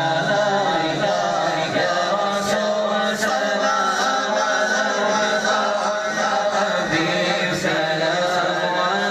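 Devotional chanting by men's voices, long held melodic notes with no pauses.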